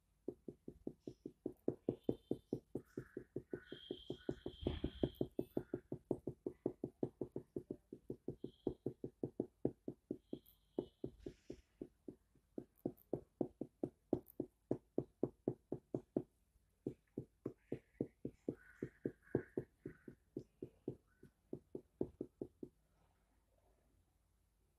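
Felt-tip marker tapped again and again on a whiteboard, dotting: a quick run of light taps, about four a second, with a short pause about two-thirds of the way through, stopping shortly before the end.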